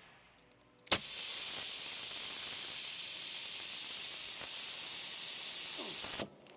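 Steady hiss of pressurised gas spraying from a nozzle, starting with a click about a second in and cutting off sharply about five seconds later.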